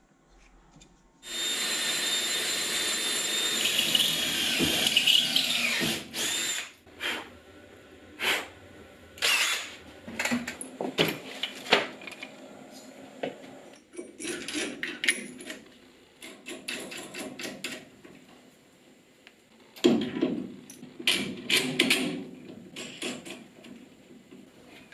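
A power tool motor runs steadily for about five seconds and winds down. Scattered clicks, knocks and rustling follow as metal mounting parts and bagged parts are handled.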